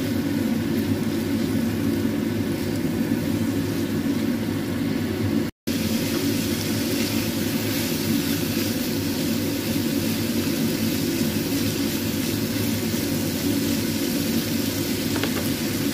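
Shrimp and vegetables sizzling in a non-stick frying pan as they are stir-fried with a plastic spatula, over a steady low rumble. The sound cuts out for an instant about five and a half seconds in.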